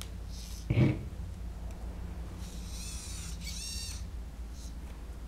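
Hands handling a robot arm sleeved in Eco-Flex silicone skin: a short knock of the arm being gripped about a second in, then high-pitched squeaks as the silicone rubs, between two and four seconds in, over a steady low hum.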